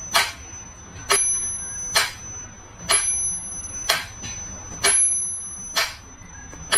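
A small metal bell struck about once a second, seven or so times, with a high ringing tone carrying on between strikes.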